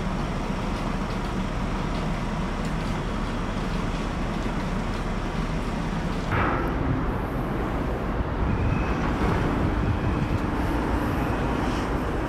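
Steady low rumble and hiss of vehicles and machinery around a moored ferry, with a brief rise about six seconds in.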